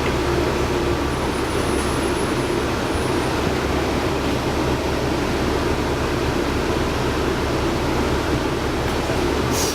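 Inside a 2011 New Flyer D60LFR articulated bus: its Cummins ISL9 inline-six diesel runs steadily under road noise, with a short hiss near the end.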